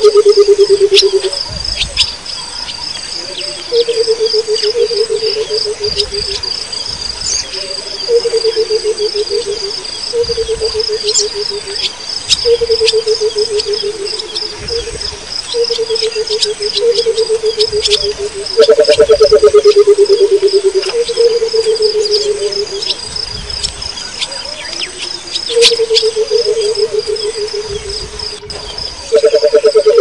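Burchell's coucal calling: phrases of rapid low hooting notes that fall slightly in pitch, repeated about every two seconds, with the loudest near two-thirds of the way through. A steady high insect trill runs underneath.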